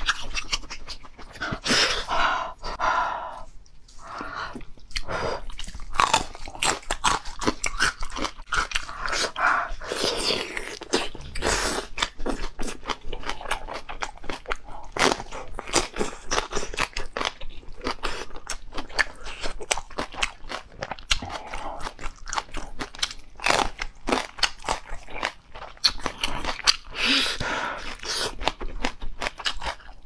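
Close-miked chewing and biting of glazed roast chicken leg quarters, a dense, continuous run of wet smacks and crackly crunches.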